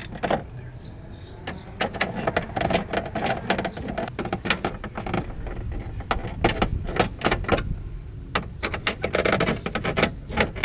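Quick, irregular clicks and taps of a license plate screw being threaded in by hand through a carbon fiber license plate frame and the metal plate.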